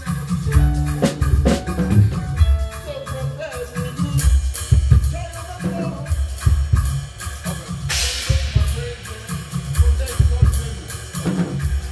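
A band playing with a full drum kit: a steady kick and snare beat under held pitched notes from other instruments, with a cymbal crash about eight seconds in.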